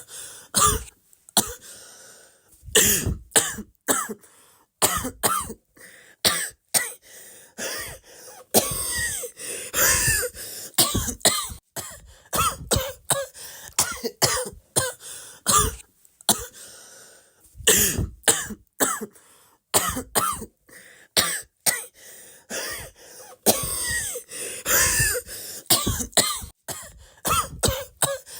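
A person coughing over and over, in quick fits of several short, sharp coughs with brief pauses between the fits.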